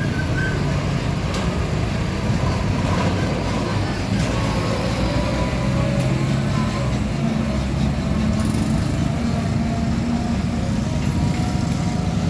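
Road traffic with heavy trucks running past: a steady low engine rumble with road noise.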